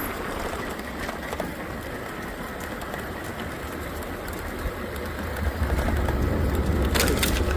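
Train rumbling along tracks above the trail, its low rumble growing louder about five and a half seconds in.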